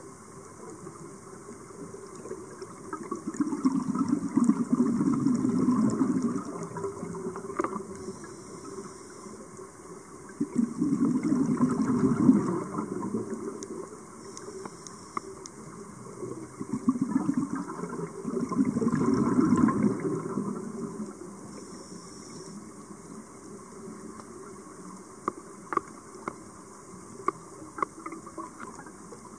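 Scuba diver's exhaled breath bubbling out of the regulator underwater, in three long bursts several seconds apart, with quieter underwater hiss between. Near the end there are only the hiss and a few faint clicks.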